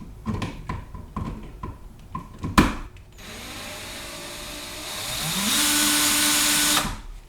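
A driver bit clicks and taps as it is lined up on a flathead outlet-cover screw, with a sharp knock about two and a half seconds in. Then a power drill runs for about three and a half seconds to back the screw out, its whine rising in pitch and then holding steady before it stops.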